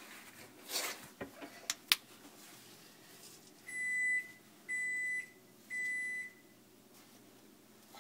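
A few sharp clicks, then three steady high-pitched electronic beeps, each about half a second long and about a second apart.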